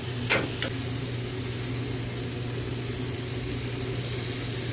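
Glazed pork ribs sizzling on a charcoal grill grate over a steady low machine hum. Metal tongs click twice against the grate within the first second.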